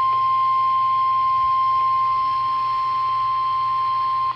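NOAA Weather Radio 1050 Hz warning alarm tone: a single steady, loud, high-pitched tone that cuts off abruptly near the end. It signals that a warning message, here a severe thunderstorm warning, follows.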